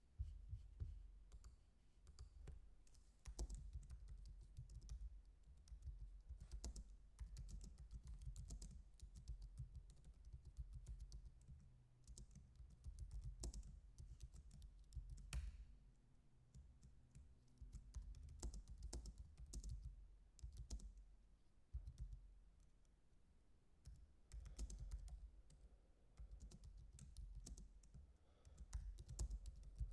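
Faint typing on a computer keyboard, with irregular clicks and taps.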